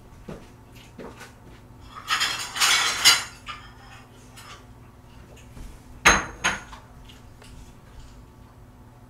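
Dishes and pots clattering: a burst of rattling about two to three seconds in, then a sharp ringing clink about six seconds in, with a softer one just after.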